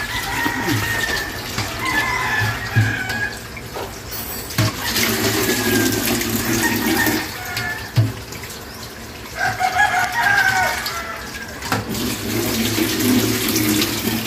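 Tap water running into a sink while fish pieces are rinsed by hand, with a few knocks, and roosters crowing more than once in the background.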